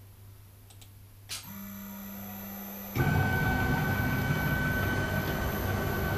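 Isel CNC milling machine starting up: a click about a second in, then a steady low hum. About three seconds in the spindle motor comes on and runs steadily and loudly with a high whine.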